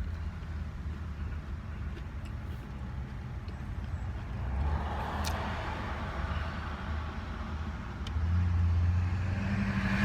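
Low, steady rumble of a running motor vehicle, with road noise swelling about halfway through and getting louder near the end. A few faint clicks.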